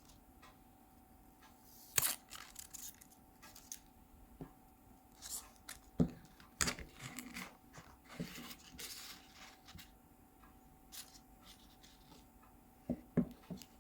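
Handling noises of unboxing: scattered light clicks and taps with a few short papery rustles, and two sharper clicks near the end.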